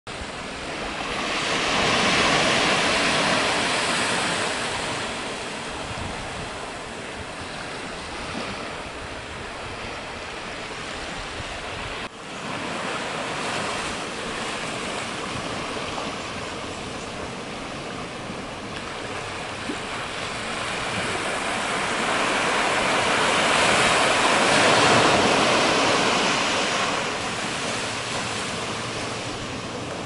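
Ocean surf washing onto a beach in a steady rush. It swells loudest twice, a couple of seconds in and again about three-quarters of the way through, and breaks off sharply for an instant about twelve seconds in.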